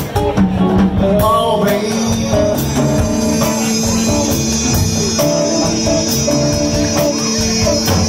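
Live blues band playing an instrumental passage: a harmonica holds long, slightly bending notes over electric guitar, upright bass and drums, with cymbal strokes keeping a steady beat.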